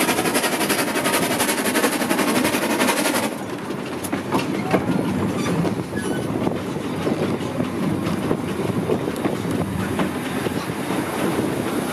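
Steam locomotive No. 2 heard from just behind it on the move. A loud, rapid beating rush cuts off suddenly about three seconds in, leaving the steady rumble of the train and sharp clicks of wheels over rail joints.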